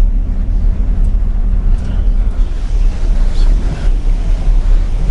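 Wind buffeting the microphone in a gusty low rumble, over the steady noise of a large passenger ship under way at sea.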